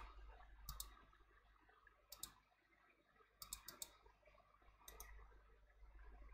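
Faint, scattered clicks of a computer mouse and keyboard, coming in four short groups with a quick run of three or four clicks about three and a half seconds in.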